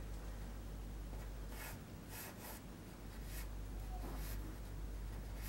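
Pencil drawing on a large sheet of paper: a handful of short scratchy strokes starting about a second and a half in, over a steady low hum.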